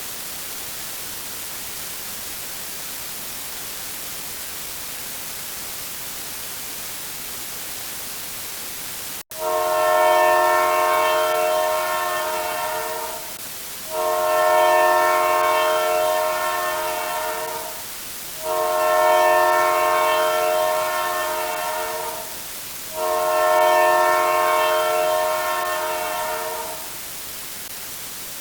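Steady static hiss for about nine seconds, cut off suddenly, then a loud multi-note horn sounding four long blasts of about four seconds each with short gaps between them.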